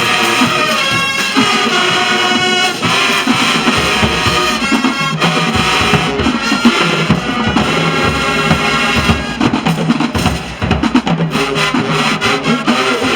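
High school marching band playing loudly, with pitched instruments carrying the tune over a steady drum beat.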